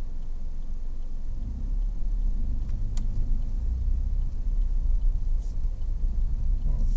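Car engine and road rumble heard from inside the cabin as the car pulls away and drives slowly; the low rumble grows louder about a second and a half in.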